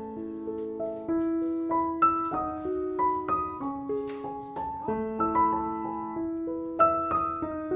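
Piano music: a melody of single notes over held lower notes that ring on and overlap.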